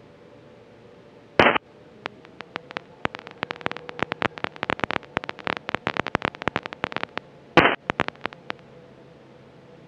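Aircraft radio audio full of interference: a brief burst of hiss, then a fast, irregular run of crackles and pops lasting about five seconds, and a second short hiss burst near the end. This is the constant crackle on the radio feed that a new antenna has not cured.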